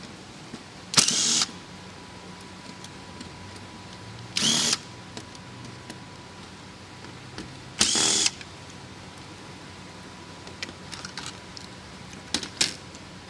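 Power screwdriver running in three short bursts a few seconds apart, then a shorter one near the end, backing the mounting screws out of a TV's power supply board. A few light clicks come between the last bursts.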